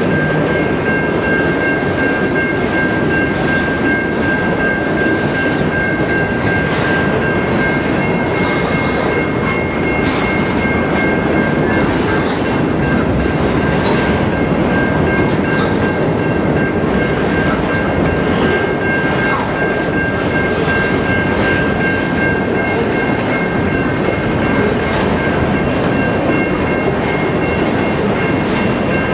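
Covered grain hopper cars of a freight train rolling past close by: a steady rumble of steel wheels on rail, with scattered clicks as wheels cross rail joints and a steady high-pitched whine over it.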